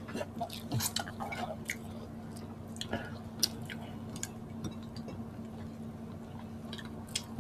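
Close-up mouth sounds of people eating pork sisig and rice by hand: chewing with scattered wet smacks and small clicks, over a faint steady hum.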